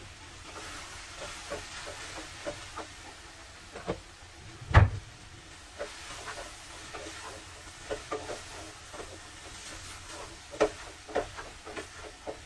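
Kitchen cooking sounds: scattered light clicks and knocks of utensils and cookware over a faint hiss, with one heavy thump about five seconds in.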